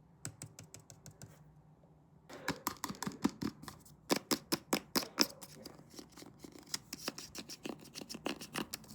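ASMR tapping and scratching with short fingernails on an object, a run of quick light clicks that grows denser and louder a couple of seconds in.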